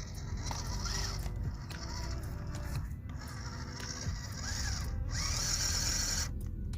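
Electric motor and gearbox of an RC crawler whining as it works over rocks, rising and falling in pitch with the throttle about a second in and again past four seconds, with a louder high hiss from about five seconds in.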